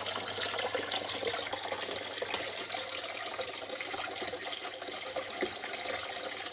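Small homemade fountain made from a plastic bottle, with water pouring steadily from the bottle in three thin streams and splashing into the basin below.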